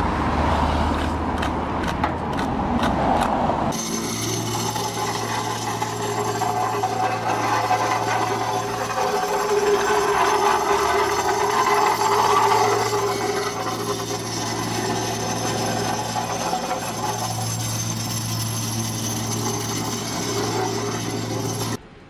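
Shovels and a rake scraping and spreading fresh asphalt. About four seconds in, a vibratory plate compactor takes over, its small engine running with a steady hum as it tamps the patch.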